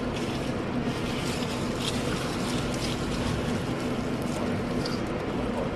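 Steady rushing background noise with a low, even hum, with a few faint ticks.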